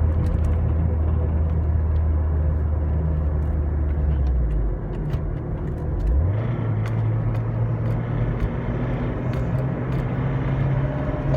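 Toyota 5S-FTE four-cylinder engine with a CT26 turbo running. Its note drops about four seconds in, then climbs and holds at a higher pitch, with faint irregular ticks. The owner hears a ticking under load that remains with the valve clearances set to spec and no spun bearings.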